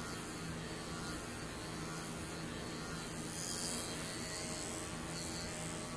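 Electric dog-grooming clipper with a guard comb attached, running with a steady hum as it is worked through a long-haired chihuahua's coat. The sound turns brighter a few times in the second half.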